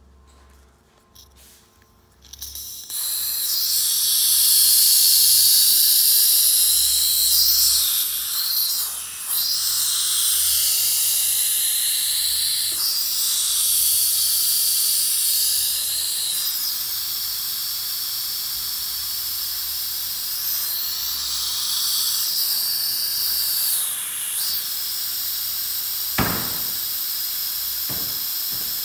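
Compressed nitrogen hissing out of the bleed-off screw on a hydraulic breaker accumulator's charge kit as the charge is let down from about 37.5 bar toward 32.5 bar. The hiss starts sharply about three seconds in, swells and dips several times as the screw is adjusted, then settles steadier, with a couple of faint clicks near the end.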